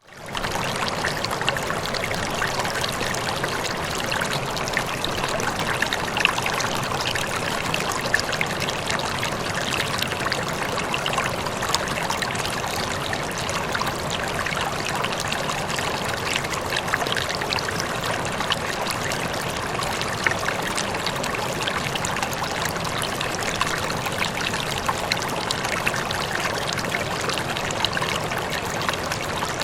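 Running water flowing steadily, with small splashes and trickles scattered through it; it rises quickly out of near silence right at the start.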